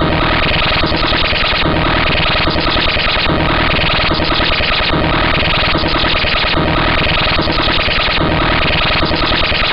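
Harsh, loud synthesized computer audio generated by a homemade C++ program, in the bytebeat style. It is a buzzy, noisy loop with steady tones, and its pattern repeats a little more than once a second.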